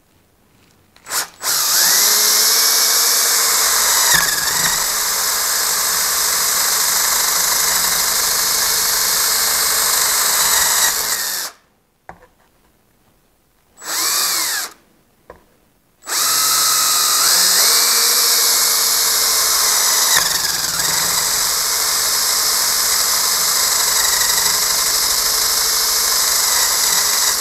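Cordless drill with a quarter-inch bit boring through extruded aluminum clamped in a bench vise, in two long runs of about ten seconds each, one per hole. The motor's whine dips in pitch briefly partway through each run. A short spin-up and spin-down falls in the pause between them.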